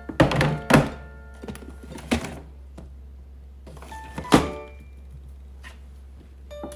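A series of sharp knocks and thunks, as of objects being handled and set down, the loudest about four seconds in, over light background music.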